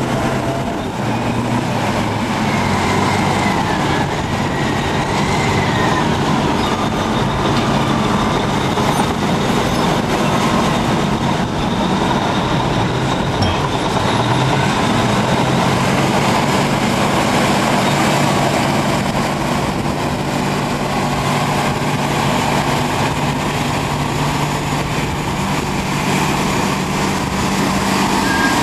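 Caterpillar D10N crawler dozer pushing a Caterpillar 631E wheel tractor-scraper: heavy diesel engines running steadily under load, with the dozer's steel tracks clanking and squealing.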